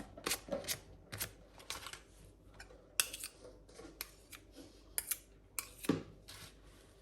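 Boiled potatoes being mashed with butter, the masher scraping and clicking against the dish in short, irregular strokes, with a louder knock about six seconds in.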